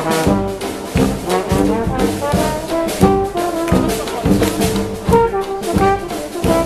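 Dixieland jazz street band playing live, a trombone loudest at the front, with saxophone and a steady bass drum beat.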